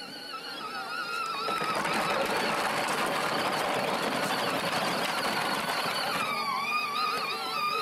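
Battery-powered toy John Deere Gator ride-on driving over grass: the electric drive motor whines with a wavering pitch under a rush of wheel and jostling noise that swells about a second and a half in. The whine sags lower near the end.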